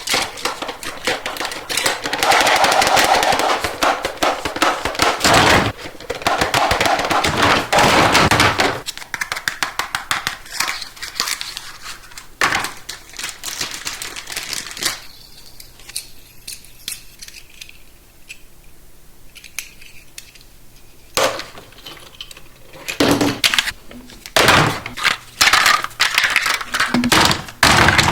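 Plastic toy packaging and track pieces being handled and opened, in rapid runs of crackling and clicking, with a quieter stretch of scattered clicks about halfway through.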